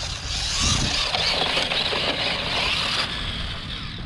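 A small brushed electric RC truck, the Traxxas 1/16 Slash, driving through tall dry grass. A loud, steady rustling hiss of grass brushing against the truck covers its running motor.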